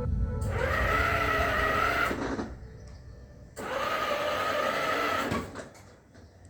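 Electric drive motor and gearbox of a kids' ride-on toy car whining in two runs of about two seconds each. Each run rises in pitch as it starts, then holds steady and cuts off.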